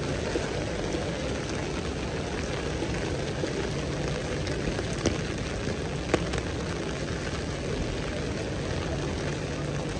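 Heavy downpour falling steadily on a wet paved street, a constant even hiss, with two sharp taps about five and six seconds in.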